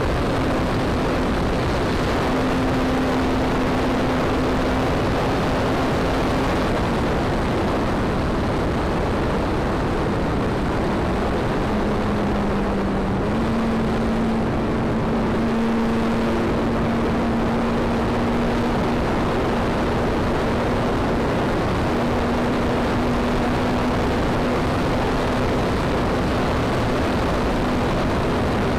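Radio-controlled model airplane's engine and propeller running steadily at speed, heard from a camera mounted on the plane, with heavy wind rush over the microphone. The engine note dips briefly about twelve seconds in, then holds steady again.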